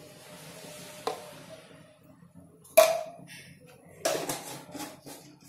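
Cooking oil poured from a glass container into a stainless steel pan, then kitchen clatter: one loud sharp clink with a short ring about halfway through, and a quick run of smaller knocks and clicks near the end.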